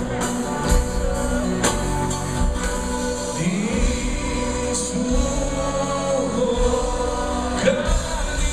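Live band playing a Greek pop song with singing and drum hits, heard through the venue's PA from within the audience.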